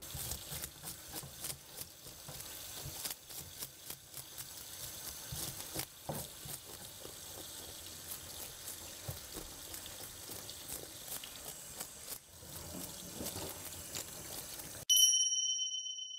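Faint kitchen background with small clicks and clatter, then near the end a bright chime sound effect rings out suddenly and fades over about a second.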